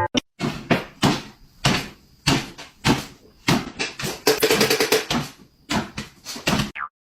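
A rapid, irregular series of knocks and bangs, roughly two a second, with a brief pitched squeak or cry among them about halfway through; they stop abruptly shortly before the end.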